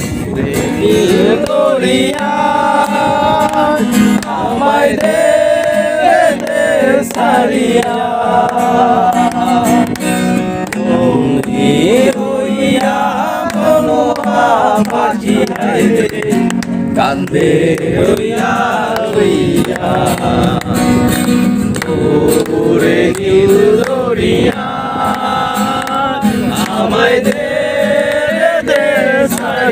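A man singing a song to his own acoustic guitar, with long held notes that glide between pitches.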